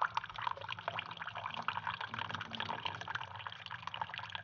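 Breville coffee maker dispensing a thin stream of brewed coffee into a ceramic cup: a steady splashing pour that stops abruptly as the brew cycle finishes.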